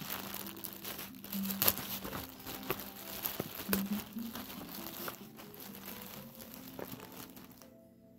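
Clear plastic packaging bag crinkling and crackling as it is pulled open and a T-shirt is drawn out, with sharp crackles in among the rustling. The crinkling stops near the end.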